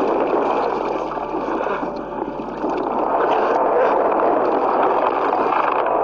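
A dense, rushing, water-like noise from a film's sound-effects mix, dipping briefly about two seconds in and then swelling again.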